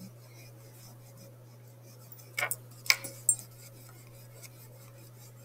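Pencil eraser rubbing on paper, faint, over a steady low hum, with a short scuff and two sharp clicks a little past the middle.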